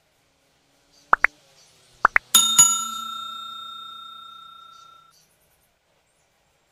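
Subscribe-button animation sound effect: two quick pairs of short popping clicks, then a bright bell ding about two and a half seconds in that rings on and fades away over about two and a half seconds.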